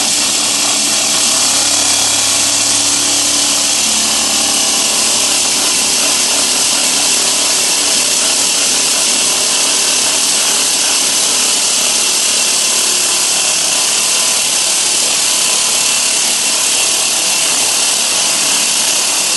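Concrete saw cutting steadily through concrete, a continuous high grinding hiss from the blade. A lower machine hum underneath fades out about four seconds in.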